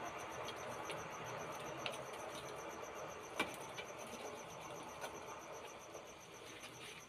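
A pot of lablab beans at a boil over a wood fire, the water bubbling and the burning wood giving a few sharp crackles, the loudest a little past the middle. A cricket trills steadily in a fast pulsing rhythm.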